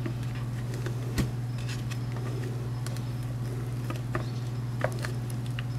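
Hard-plastic meat shredder claws tearing cooked chicken apart in a bowl: faint soft scrapes and ticks with a few sharper clicks of the claws against the bowl, over a steady low hum.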